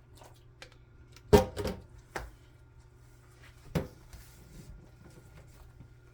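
Bread dough being kneaded by hand: a few dull knocks and thumps, the loudest about a second in, a couple more just after, and another near four seconds in, over a faint steady hum.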